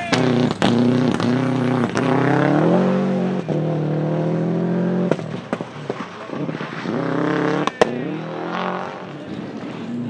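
Subaru Impreza 555 Group A rally car's 2.0-litre turbocharged boxer engine revving hard through the gears as it pulls away, pitch climbing and dropping with each shift. Sharp anti-lag backfire bangs punctuate it, the loudest near eight seconds in, and the engine fades over the last couple of seconds.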